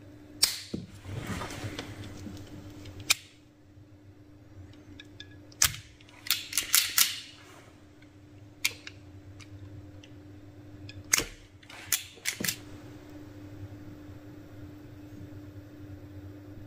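Irregular sharp snaps of wire cutters and an automatic wire stripper cutting and stripping the switch's red and black leads, some single and some in quick clusters. A steady low hum runs underneath.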